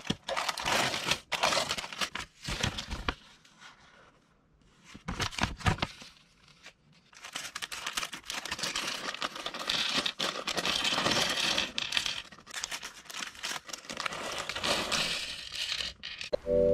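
Cardboard toy-brick box being torn open, then after a pause of a few seconds a clear plastic parts bag crinkling as it is handled and cut open with small scissors and the plastic bricks tipped out onto a table.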